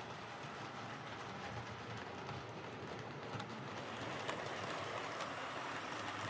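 OO gauge model of a Class 415 Adams Radial tank locomotive running on track: a steady whir from its small DC motor and gears, with a few faint clicks in the second half.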